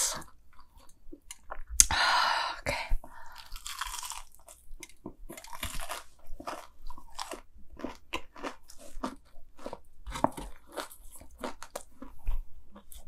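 Someone biting into and chewing a deep-fried Cheetos mac and cheese ball with a crisp coating. There is a louder crunch about two seconds in, then steady crunchy chewing at two or three chews a second.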